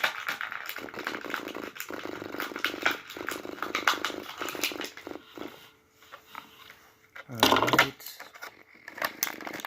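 A house cat purring close to the microphone, mixed with small clicks from a plastic toy being handled. A short, loud bump comes about seven and a half seconds in.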